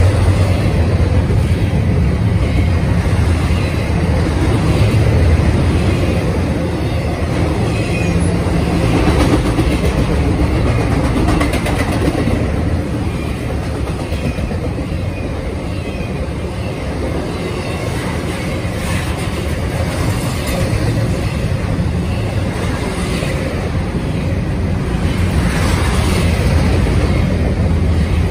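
Double-stack intermodal freight cars rolling past: a steady low rumble of steel wheels on rail, with occasional clacks as wheels cross rail joints.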